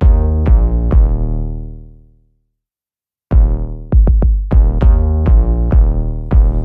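Electronic intro music: a few synth and drum-machine hits that die away, a gap of about a second, then a quicker beat of hits.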